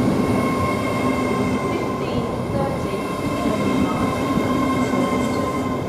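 LNER Class 800 Azuma train at the platform, a steady rumble with a high, even whine held on two pitches.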